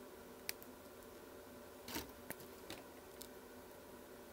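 A few sharp, separate clicks of small hand tools at work on a circuit board while a capacitor is fitted, the loudest about two seconds in, over a faint steady hum.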